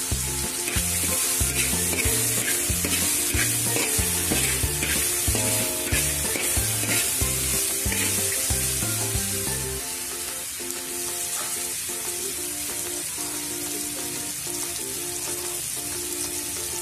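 Ground spice paste sizzling in hot oil in a wok as it is stirred with a metal spatula. Background music plays underneath, and its bass drops out about ten seconds in.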